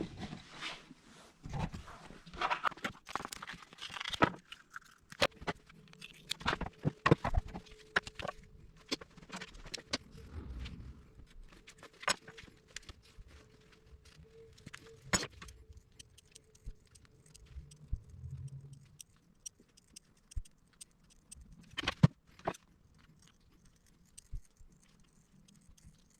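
A rubber inner tube being cut apart and handled to make gasket material: irregular sharp clicks and snips with brief rustling.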